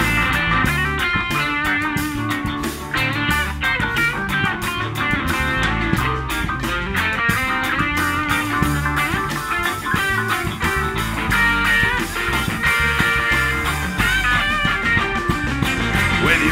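Live band playing an instrumental break led by an electric guitar, a Stratocaster-style solid-body, picking quick runs of notes over a steady beat.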